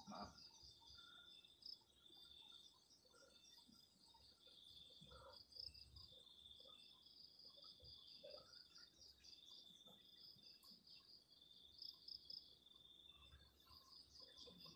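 Faint, steady high-pitched chirring of night insects, two trills layered, one of them finely pulsing, with a few soft rustles now and then.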